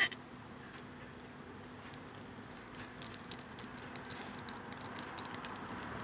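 One short, loud hiccup right at the start, then a run of light, quick clicks and taps from about three seconds in.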